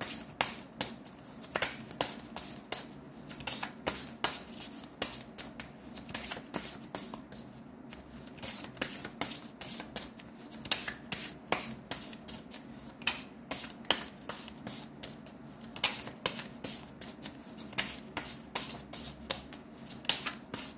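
A tarot deck being shuffled by hand: a run of quick, irregular card snaps and flicks, several a second, with a short lull partway through.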